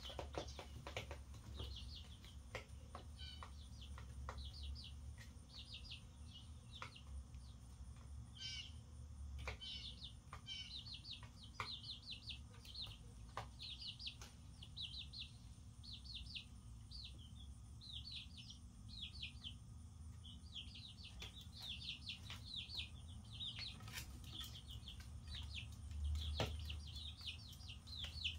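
Young chicks, a couple of weeks old, peeping continuously in short, high, rapid cheeps. Scattered sharp taps come through over a low steady hum.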